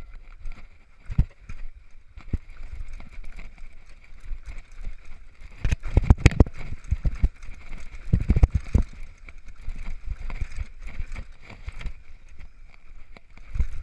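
Downhill mountain bike rattling and clattering over a rough dirt trail, with a steady high whir underneath. Heavy knocks come in a cluster about six seconds in and again around eight to nine seconds, the loudest moments.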